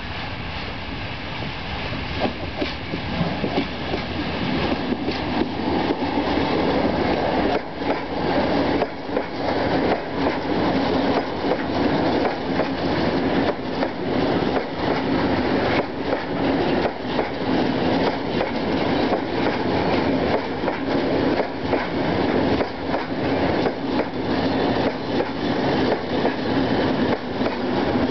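A train of loaded lignite hopper wagons, pushed by an EL2 industrial electric locomotive, rolling past close by. The wheels knock over the rail joints in a dense, irregular clickety-clack, which grows louder about two seconds in as the wagons come alongside.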